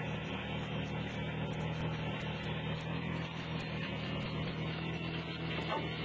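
Homebuilt miniature sawmill's motor running with a steady, even hum.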